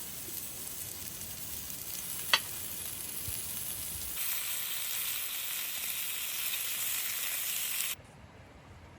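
Food sizzling in a hot pan, with one sharp click about two and a half seconds in. The sizzle grows louder about four seconds in and stops suddenly near the end.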